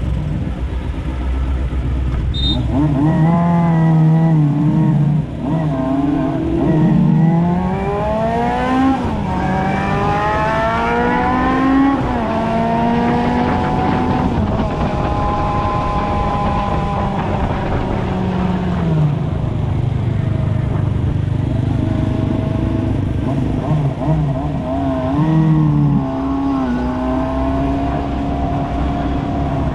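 Motorcycle engine pulling away and revving up through the gears in several rising steps, then holding a steady cruising pitch, easing off and picking up again near the end, over a constant low rumble of wind and road noise.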